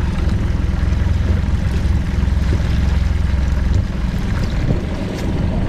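Motorboat under way: the engine's steady low rumble with rushing water and wind noise. The low rumble eases about two-thirds of the way through.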